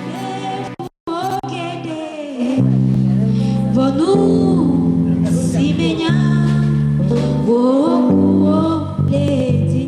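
Music: a voice singing over guitar and held bass notes, with a brief cut-out about a second in.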